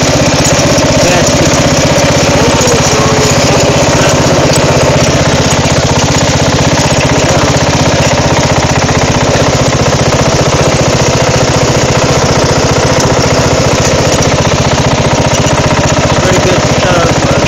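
Craftsman riding lawn mower's engine running steadily and loudly while the mower is driven off road over rough ground.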